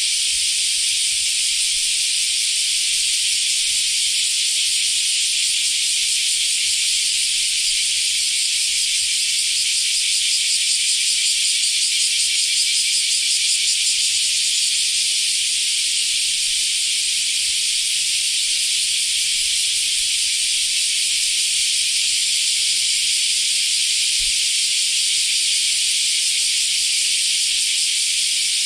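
Cicada (semi) singing: a loud, steady, unbroken high buzz that does not let up.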